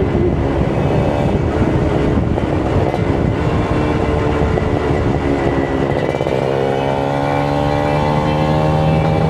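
Kawasaki Ninja RR 150's two-stroke single-cylinder engine running on the move, over a steady rush of noise; from about six seconds in the revs climb steadily.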